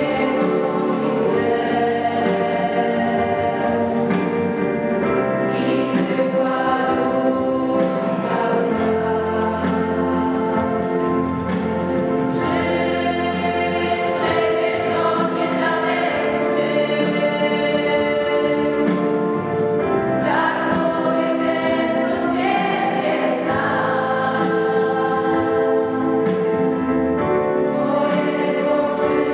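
A girl singing a song into a microphone, with a mixed choir of school students singing along; the music is continuous, with some notes held for a second or more.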